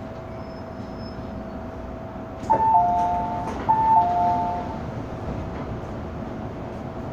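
MTR M-Train onboard chime heard inside the car: a two-note chime, high then lower, sounds twice in a row, over the train's steady running hum with a constant thin whine.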